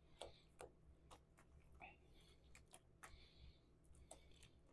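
Faint, irregular clicks and scrapes of a spatula working thick tzatziki around a stainless steel mixing bowl, over a low room hum.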